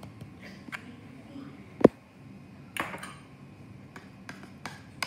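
A metal spoon clinking against a ceramic mixing bowl as a food mixture is stirred: one sharp clink a little under two seconds in, a lighter one about a second later, and a few small ticks.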